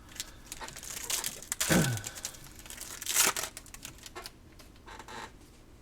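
Foil trading-card pack wrapper crinkling and tearing as it is opened, with the loudest crackles about two and three seconds in.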